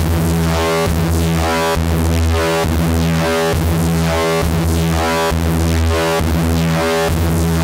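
Electronic synthesizer music: sustained chords over a deep bass note that changes about once a second.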